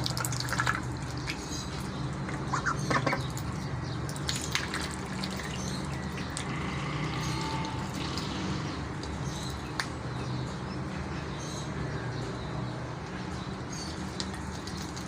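Ducks feeding on cabbage: scattered wet clicks and snaps of bills pecking and tearing at the leaves, over a steady low hum.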